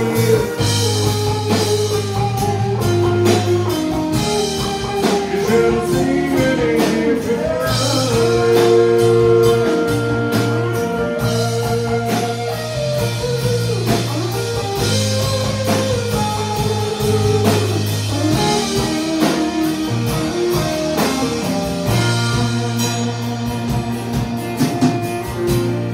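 Live country band playing with a steady drum beat: acoustic guitar, electric guitar and fiddle over a drum kit.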